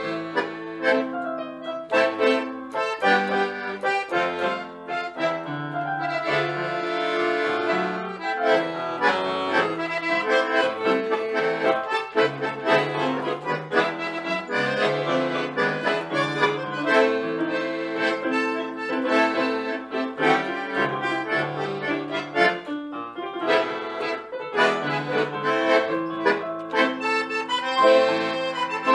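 A tango played by a trio of bandoneon, piano accordion and electronic keyboard, with the reeds carrying the tune over chords and a bass line, and many short, sharply attacked notes.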